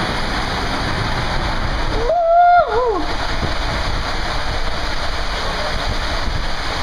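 Water rushing and spraying through a water-coaster slide tube as a rider slides down, a loud steady hiss. About two seconds in, a brief high-pitched shout rises and falls.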